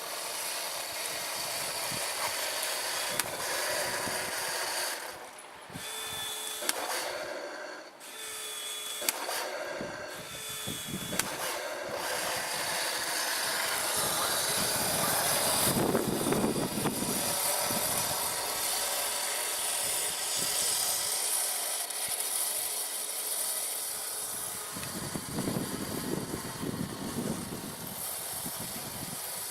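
Heng Long 1/16 RC Leopard tank's small electric drive motors and gearboxes running with a steady whine like a power tool, swelling louder twice in the second half. A few sharp clicks are heard in the first half.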